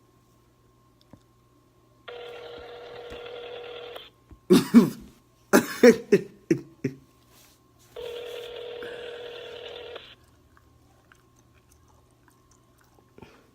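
US telephone ringback tone heard over the line while a call is being placed: two rings, each about two seconds long and about four seconds apart. Between the rings, a short burst of a man's voice without words.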